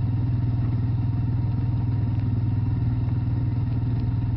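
Quad bike engine running steadily as the bike is ridden along at an even speed, with a rapid, even pulse.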